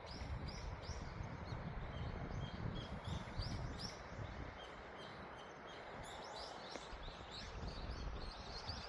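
Small birds chirping, many short high calls a few times a second, over a steady low rumble of outdoor background noise.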